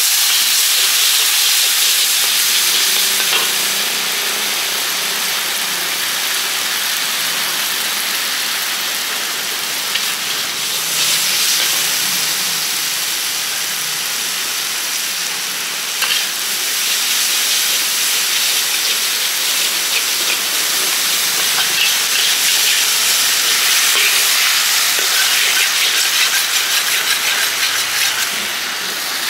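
Pad thai frying and being stirred in a hot pan: a steady, loud sizzle with a few light clicks now and then.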